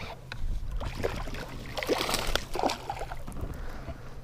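Water splashing and sloshing at the side of a bass boat, with scattered clicks and a steady low hum underneath.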